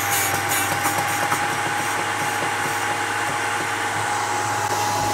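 Electric drill bit sharpener's motor running with a steady whine and hum, its grinding wheel hissing against a drill bit being rocked and rotated in the point-splitting port to split the point.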